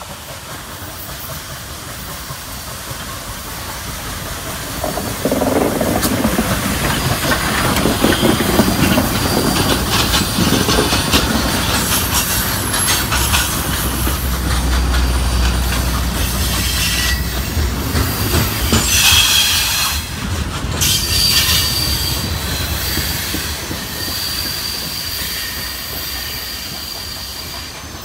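Nickel Plate 765, a 2-8-4 Berkshire steam locomotive, passes close by pulling its train. It gets much louder about five seconds in as the engine goes by, then its cars roll past with wheel clatter and thin squealing on the rails, fading slowly as the train recedes.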